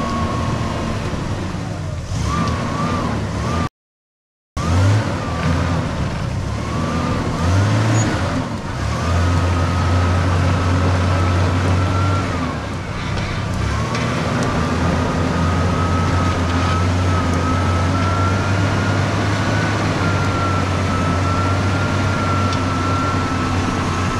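Toyota Land Cruiser engine running hard under load, with a high whine that wavers in pitch as the revs change. The sound cuts out completely for under a second about four seconds in.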